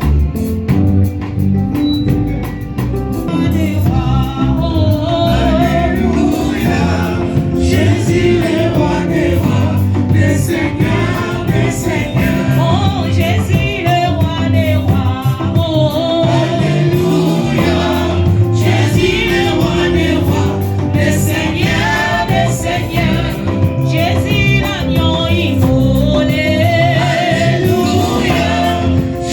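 Gospel worship music: a band with drums and bass playing a steady groove, with singers joining in about three seconds in and singing together over it.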